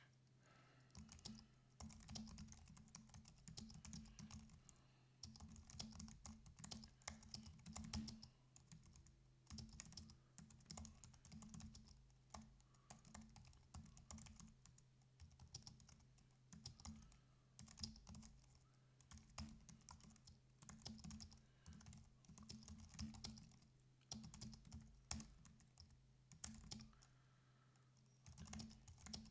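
Quiet typing on a computer keyboard, in quick runs of keystrokes with a few short pauses, starting about a second in. A faint steady low hum runs underneath.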